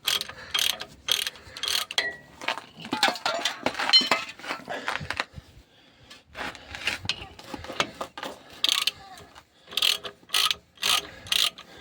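Hand ratchet wrench clicking in quick repeated strokes as bolts are turned to take the brake drum off a KAMAZ truck wheel hub, with a short pause about halfway through.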